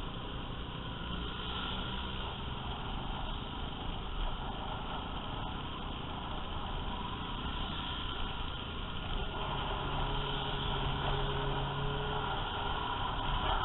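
Riding a motor scooter in a group of scooters and motorcycles at road speed. Steady wind rush on the helmet-mounted microphone mixes with the running engines and tyre noise. A steadier engine hum stands out about two-thirds of the way through, and the sound grows a little louder near the end.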